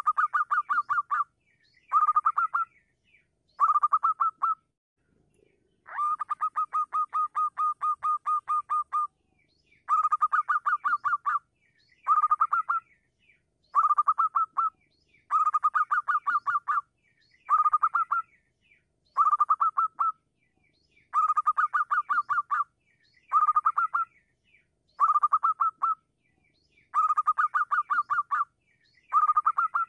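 Zebra dove (perkutut) calling over and over: short bursts of fast staccato notes, each about a second long and coming about every two seconds, with one longer run of about three seconds early on.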